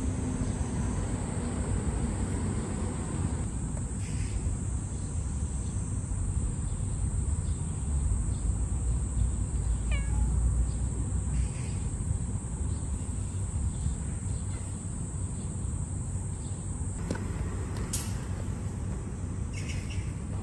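A kitten meowing a few times in short, high calls, the clearest near the end, over a steady low background rumble.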